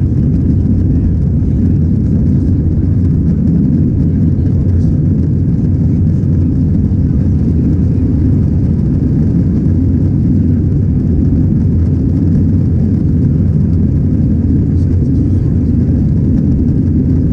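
Steady, loud low rumble inside the cabin of an Airbus A321 in flight: engine and airflow noise heard through the fuselage at a window seat.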